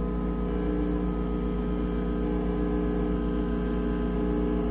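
Rancilio Silvia espresso machine's vibratory pump running steadily mid-extraction, about twelve to sixteen seconds into the shot. A steady, even hum.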